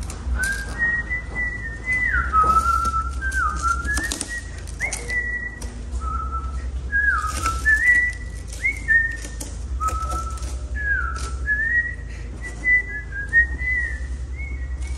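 A person whistling a tune in held notes and slides, with scattered clicks and knocks of hand work over it.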